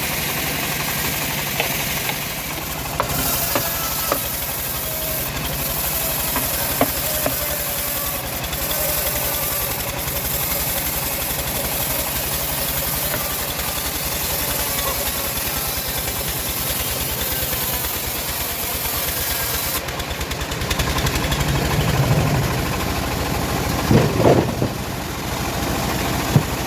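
Engine of a homemade bandsaw sawmill running steadily with a high hiss. About twenty seconds in the hiss drops away and the lower running sound strengthens, with a couple of louder knocks near the end.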